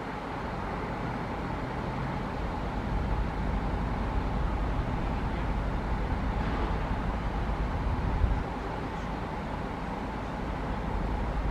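Jet airliner engines, a steady rumble with a faint whine, growing louder about three seconds in.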